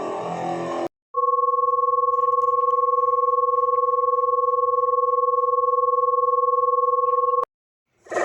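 Electronic warning siren sounding a steady, unchanging tone of two pitches at once, a lower and a higher, held for about six seconds with a short silence either side. A different, fuller sound cuts off just before it.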